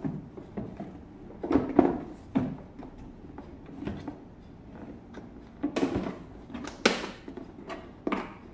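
Hollow plastic halves of a Masters of the Universe Origins Castle Grayskull playset knocking and clacking together as the castle is closed and its plastic clips are pressed shut. Irregular knocks, the loudest ones about two seconds in and near seven seconds.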